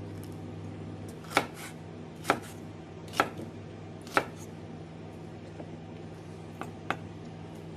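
Kitchen knife slicing a red bell pepper on a wooden chopping board: four sharp knocks of the blade on the board about a second apart, then two fainter ones close together near the end.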